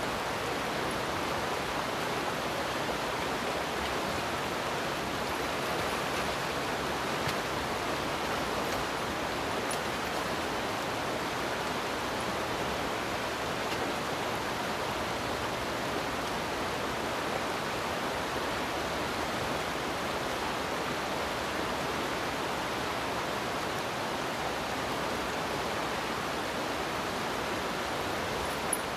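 Rushing river current running fast over rocks, a steady, unbroken rush of water.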